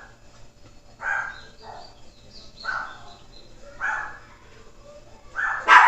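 A dog barking repeatedly, about one bark a second, with the loudest bark near the end.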